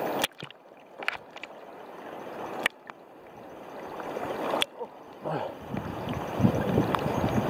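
Seawater sloshing and lapping right at the microphone of a camera held at the surface, with a few sharp clicks along the way. The sloshing builds and grows much louder and choppier in the last couple of seconds.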